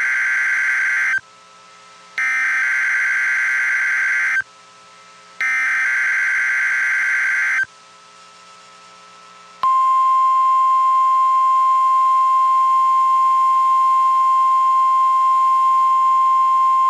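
NOAA Weather Radio Emergency Alert System (SAME) header: three loud buzzy data bursts of about two seconds each, a second apart, then, a couple of seconds after the third, the steady 1050 Hz warning alert tone comes on and holds. This sequence signals the start of an alert broadcast, here a practice tornado warning.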